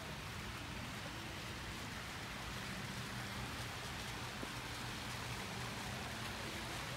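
Steady hiss and patter of falling water, even throughout.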